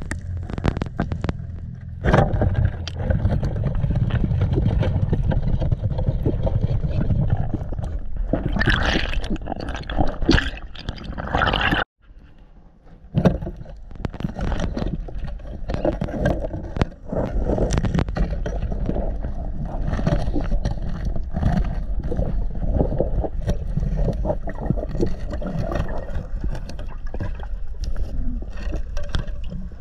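Muffled underwater rushing and gurgling of water picked up by a diver's action camera in its waterproof housing, with scattered knocks and scrapes. The sound drops out suddenly for about a second around twelve seconds in, then carries on.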